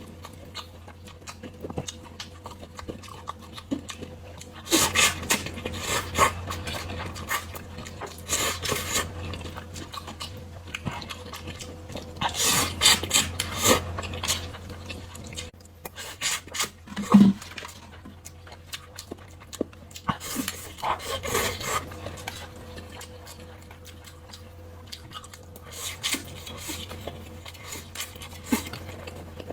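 Close-miked eating of fire-chicken (Buldak) instant noodles: slurping and chewing in irregular bursts, with utensils clicking and scraping against the bowl, over a steady low hum.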